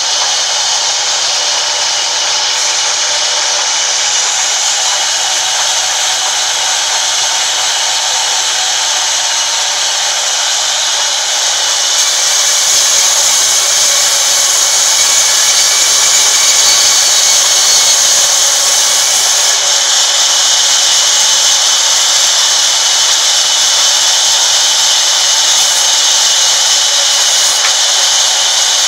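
Sawmill band saw running with a loud, steady noise. About twelve seconds in it gets a little louder as a plank is fed through the blade and ripped lengthwise.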